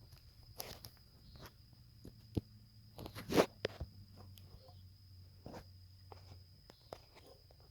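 Scattered rustles, clicks and crunches, loudest about three and a half seconds in, over a faint steady high-pitched whine.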